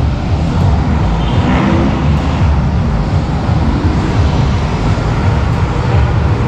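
Busy road traffic: a steady, loud mix of vehicle engines running and road noise, heavy in the low rumble.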